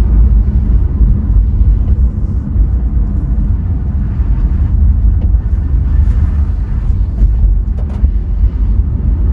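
Honda ZR-V on the move: steady low road and drive rumble heard inside the cabin, with a few light clicks through it, such as the rear knocking (kotsu-kotsu) that the owner puts down to poor build fit.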